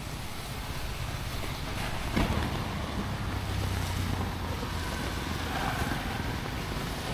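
Rainy city street ambience: an even hiss of rain with a low rumble of traffic, and one sharp knock about two seconds in.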